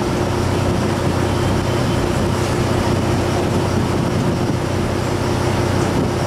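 A ferryboat's engine running steadily: a constant low drone with a steady hum and a higher steady tone over it.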